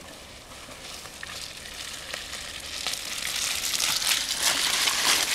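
Fat-tyre mountain bike rolling through fallen leaves on a forest trail, a crackling rustle that grows steadily louder as the bike comes close.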